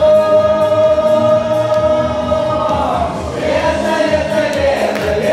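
A song with a sung voice holding one long note for about two and a half seconds, then the melody moving on over the accompaniment.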